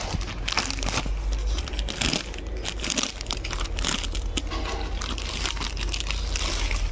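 Clear plastic polybag crinkling and rustling irregularly as it is handled and a folded T-shirt is worked out of it, over a low steady hum.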